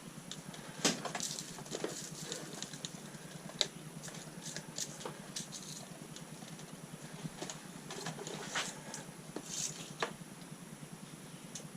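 Irregular light clicks and taps of small metal parts and hand tools being handled on a workbench while RC car A-arm hinge pins are worked on, with the sharpest click about a second in.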